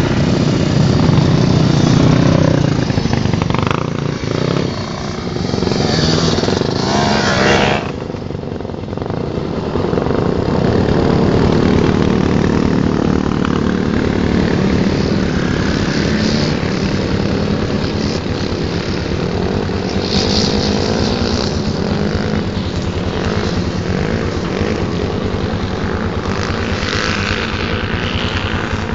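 Several quad bike and dirt bike engines running as the machines ride past.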